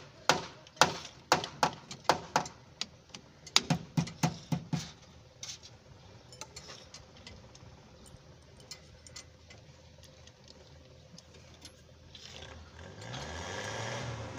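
About ten sharp knocks, roughly two a second, from tool work on a rear drum brake assembly while brake shoes are being fitted, followed by quieter clicks of parts being handled. Near the end a passing vehicle swells in.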